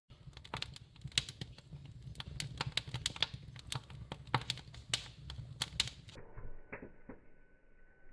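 Wood fire crackling, with irregular sharp pops and snaps over a low rumble. About six seconds in it cuts to fainter, sparser ticks.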